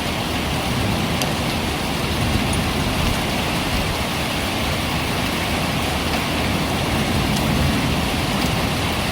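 Heavy typhoon rain pouring steadily: a dense, even hiss with a low rumble beneath it and a few faint drip ticks.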